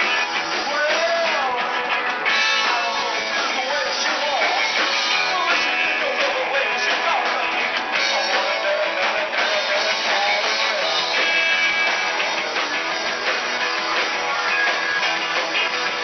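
Live rock band playing: electric guitar and drum kit, with a lead vocal.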